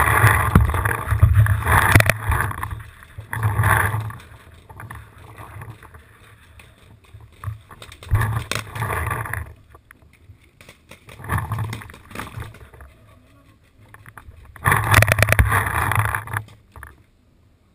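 Movement and rubbing noise on a paintball player's body-mounted camera, in irregular bursts of a second or two with a low rumble and hiss, the loudest near the start and again towards the end.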